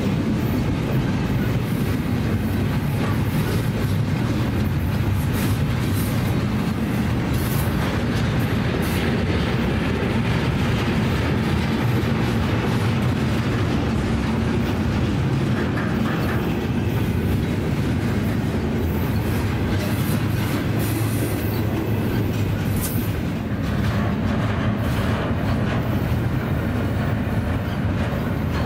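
Double-stack intermodal container well cars of a Union Pacific freight train rolling past close by: a steady rumble of steel wheels on rail, with scattered clicks and clacks over the rail joints.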